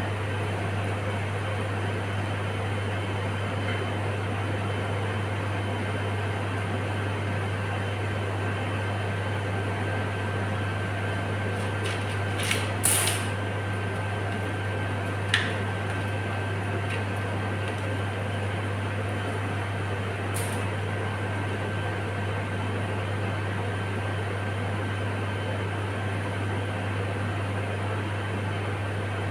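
Steady mechanical hum with a thin high whine, as from a running fan or kitchen appliance. A few short clicks and taps stand out a little before halfway and twice more later, as bamboo skewers are worked through shrimp over a steel bowl.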